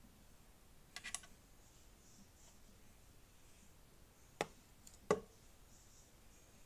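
Plastic Lego pieces clicking as the brick-built skeleton is handled. A quick cluster of three small clicks comes about a second in, then two sharp snaps come about four and five seconds in, the second the loudest, as a section of the model is pulled apart.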